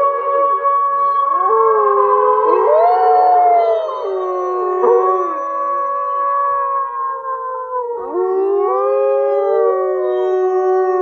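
Several Eurasian wolves howling together in a chorus: long, overlapping howls at different pitches, each sliding up and down, with fresh howls rising in about two thirds of the way through.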